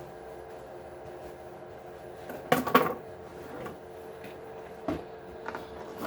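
Clatter of hard plastic and metal RC truck parts and tools being handled during the teardown, with a quick cluster of knocks a little over halfway through and a few lighter clicks after it, over a steady low hum.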